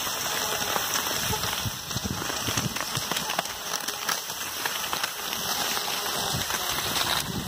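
Cross-country skis sliding over a groomed snow trail, a steady scraping hiss with many small crackles.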